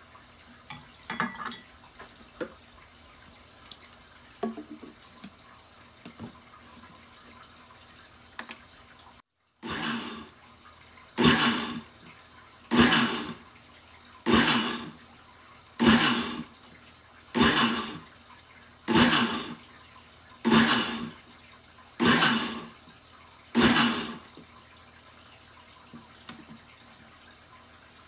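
Cuchen glass-jar countertop blender pulsed about ten times, about a second and a half apart, each short burst of the motor churning sliced banana and liquid into a shake. Before the pulses there are a few light knocks from handling the jar and lid.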